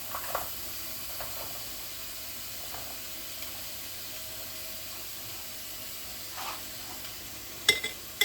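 Chopped onions and small pieces of dried fish sizzling in hot oil in a pan, with a few faint scrapes of stirring and two sharp clinks of metal near the end.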